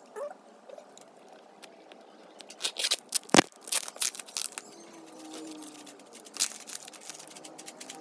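Cardboard parcel wrapped in plastic packing tape being handled and cut open with scissors: a scatter of sharp clicks and crackles, thickest around the middle, with one loud snap about three and a half seconds in.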